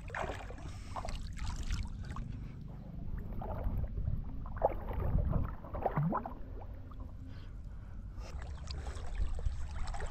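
Water sloshing and splashing as a swimmer and Asian small-clawed otters paddle, close to a microphone at the water's surface.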